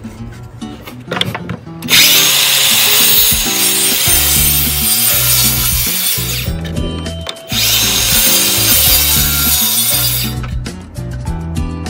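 Makita circular saw cutting a thin wooden board in two loud passes: the first starts about two seconds in and runs for about four seconds, then the saw stops for about a second and starts again for another three seconds before cutting off.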